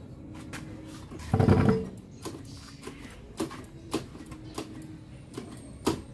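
About six sharp, separate metal clicks spaced irregularly, from a scooter's rear drum-brake adjuster nut being turned notch by notch during brake adjustment. They are preceded about a second in by a brief, louder low sound.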